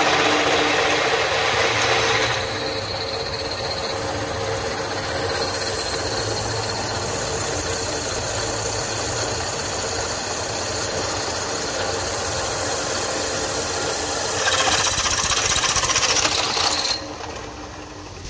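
Pillar drill press running, its twist bit cutting through a forged metal part held in a drill vise: a steady machine noise. It is louder for the first couple of seconds and again near the end, then drops off suddenly about a second before the end.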